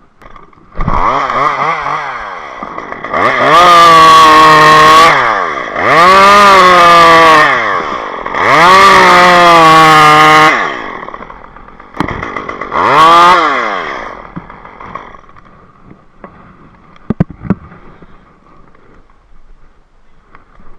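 Gas chainsaw starting up, then revved four times, each rev climbing in pitch and dropping back to idle, before it falls quiet. A few short knocks follow near the end.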